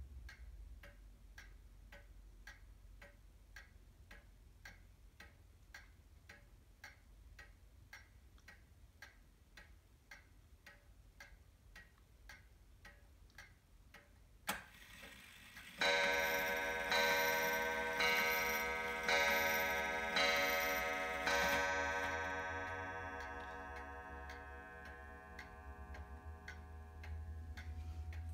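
R&A 31-day wall clock ticking steadily. About halfway through, a single click comes as the strike releases. Then the hammer hits the spiral gong six times, about a second apart, striking the hour, and the gong rings on and fades while the ticking continues.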